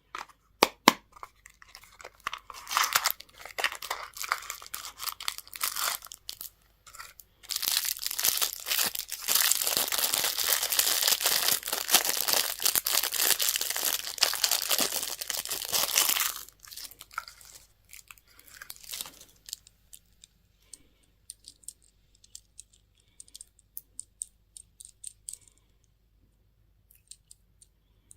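Candy and surprise-toy packaging being torn open and crinkled by hand: a few sharp clicks, then a long stretch of dense tearing and rustling in the middle, thinning to scattered crinkles.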